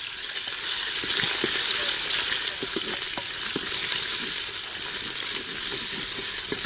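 Ginger paste and cumin sizzling in hot oil in a clay pot, stirred with a wooden spoon that gives frequent short knocks and scrapes against the pot.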